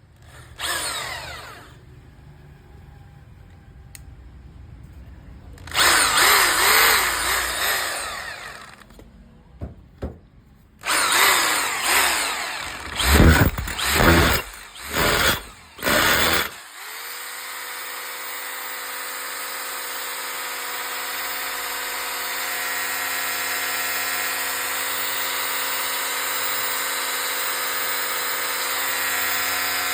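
Makita 800 W hammer drill's motor run in several short bursts in the first half, its pitch sweeping up and down as the speed changes, then held running at one steady speed from a little past halfway.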